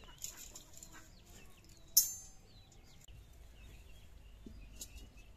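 One sharp metal clang with a short ring about two seconds in, from metal cookware being knocked or set down, over birds chirping in the background.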